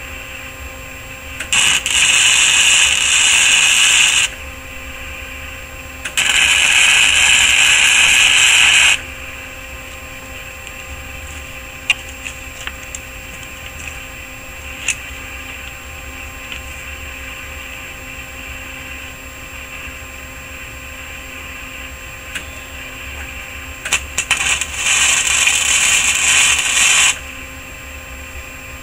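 Electric welder arc-welding a steel axle-bearing bracket onto a go-kart frame in three short welds of two to three seconds each. A steady hum and a few clicks fill the gaps between the welds.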